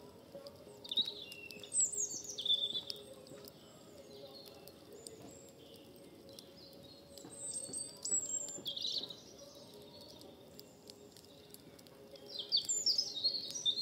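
A songbird singing in three short bursts of quick, high chirping phrases, the last near the end.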